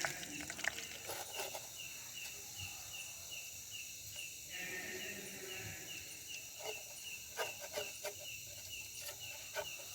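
An animal calls steadily in the background with a rapid, regular train of short high chirps, about three a second, all on the same pitch. Scattered light clicks and knocks sound alongside it.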